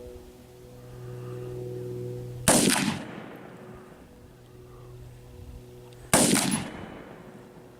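Two single rifle shots from an AR-15 firing tracer rounds, about three and a half seconds apart. Each is a sharp crack followed by a short echo that dies away.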